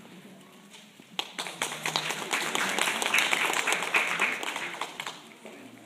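Audience applauding: many hands clapping start about a second in, build up, and die away near the end.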